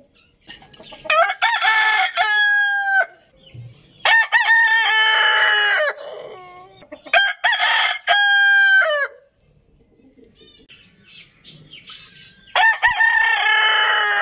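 Roosters crowing: four long cock-a-doodle-doo crows of about two seconds each, with short pauses between them. The last crow begins near the end.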